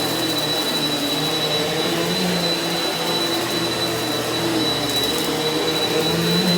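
Eureka NEU180B Power Speed upright vacuum cleaner running on carpet. It makes a steady high whine over a motor hum whose pitch shifts slightly as it works.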